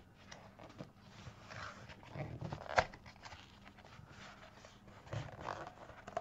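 Cardboard mailer envelope handled and torn open by hand: paper rustling and scraping, with a sharp snap about halfway through.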